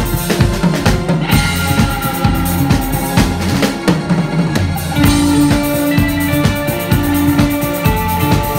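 Live band playing loudly: electric guitar over a busy drum-kit beat with bass drum and snare hits.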